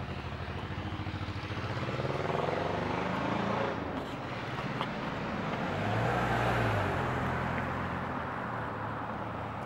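A car engine running steadily, rising in pitch from about two seconds in and dropping back near four seconds, with a second short swell about six seconds in.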